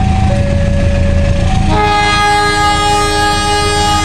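Approaching diesel locomotive sounding its multi-note horn: one long chord starts about a second and a half in and is held to the end, over a steady low rumble. Before the horn, a two-note electronic tone alternates.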